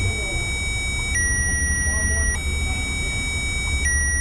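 Electronic tone from a Power Probe circuit tester clipped to the starter signal wire, switching back and forth between a higher and a slightly lower pitch every second or so during a start attempt, over a low steady hum. The change of tone comes as the wire gets 12 volts while the starter fails to crank.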